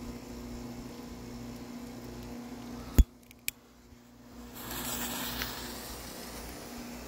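A sharp click about three seconds in and another half a second later, then a Black Cat Gold & Silver Treasures 9-inch firework fountain catching and spraying sparks with a steady hiss from about four and a half seconds in. A low steady hum runs under the first three seconds.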